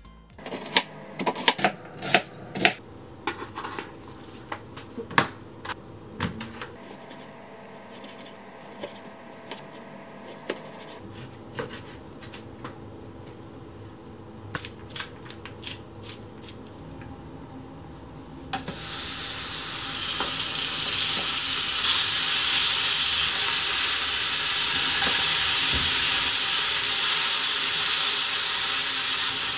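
Scattered sharp knocks and clicks as raw pork is cut and handled on a plastic cutting board. About two-thirds of the way in, pork cubes go into a hot frying pan and sizzle loudly and steadily, with the pieces being stirred.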